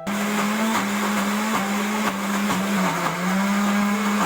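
Electric mixer grinder running at full speed, grinding soaked urad and moong dal into batter. It has a steady motor hum that wavers slightly in pitch as the load shifts, and it starts suddenly at the very beginning.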